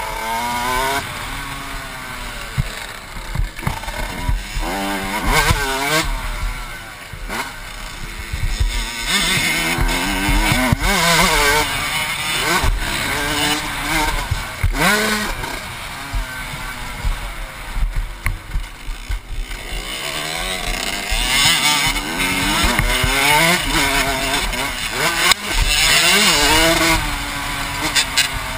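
Motocross dirt bike engine heard close up from the rider's helmet, revving hard and falling in pitch again and again as the throttle is worked through the corners and straights of the track.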